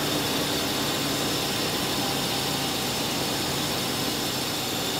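Mercedes-Benz engine with Bosch K-Jetronic (C.I.S.) fuel injection idling steadily, its fuel system pressure spot on.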